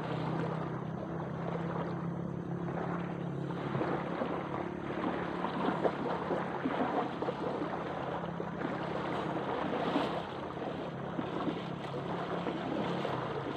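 Wind on the microphone and lake water lapping at the shore, over a steady low engine drone. Water splashes as someone wades through the shallows in the second half.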